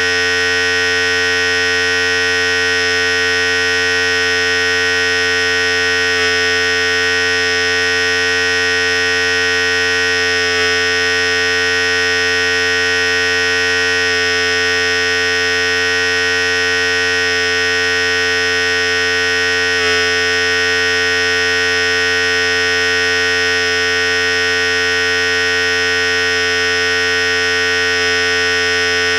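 Philips Series 5000 electric hair clipper running continuously with a steady, even buzzing hum.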